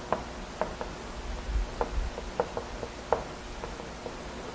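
Chalk writing on a blackboard: a string of light, irregular ticks as each stroke of the stick hits and leaves the board, about two or three a second.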